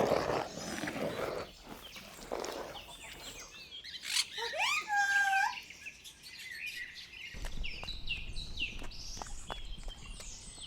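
Birds chirping and calling: a few gliding whistled notes, then many short high chirps. Short rough animal noises come in the first couple of seconds, and a low rumble runs under the chirps in the last few seconds.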